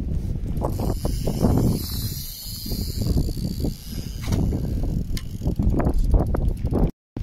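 Strong wind buffeting the microphone in loud, uneven gusts, with a brief dropout to silence near the end.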